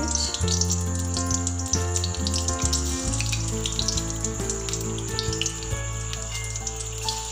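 Batter-coated potato bondas deep-frying in hot oil: a steady sizzle full of fine crackles, with background music of sustained notes and a changing bass line.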